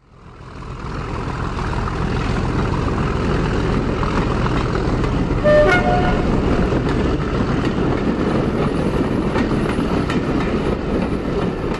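Train running with a steady rumble that fades in at the start; about halfway through, its horn gives one short two-note toot, a lower note then a higher one.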